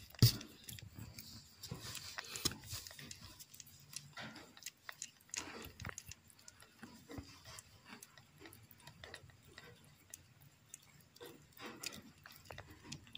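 Soft, irregular mouth sounds of a mother cat licking and chewing over her newborn kittens, with one sharp knock just after the start.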